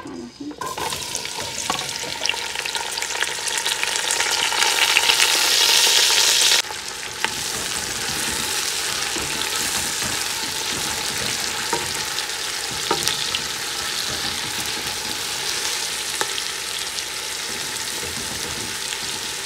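Sliced onions dropped into hot oil in a stainless steel pot and frying: a loud sizzle that starts within the first second, then drops suddenly about six and a half seconds in to a steadier frying hiss as the onions are stirred with a spatula.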